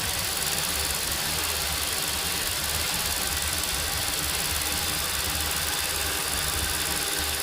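Hyundai i20 petrol engine idling steadily, just after a timing chain replacement and a first start.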